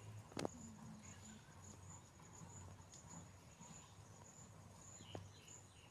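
Faint, high-pitched insect trill pulsing steadily, with a couple of small clicks, one about half a second in and one near the end.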